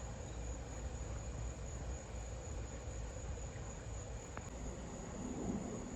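Crickets chirring in one steady, high, unbroken note over a constant low rumble.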